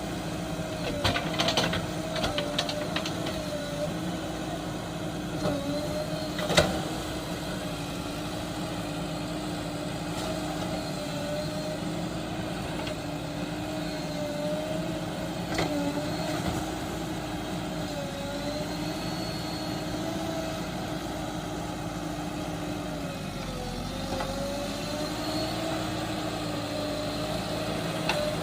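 Heavy vehicle's diesel engine running steadily, its pitch dipping and rising slightly, with a few clicks in the first seconds and one sharp knock about six and a half seconds in.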